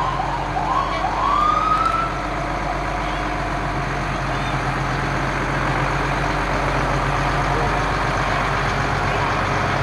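Fire engine siren giving a few short rising whoops and then one longer rising whoop in the first two seconds. After that the fire truck's engine runs steadily as it rolls slowly past.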